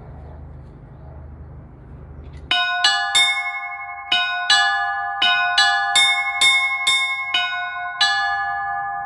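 Church bells ringing: a quick, uneven run of about a dozen strikes on several higher-pitched bells, starting about two and a half seconds in, each bell ringing on under the next. Before the bells, a low steady rumble.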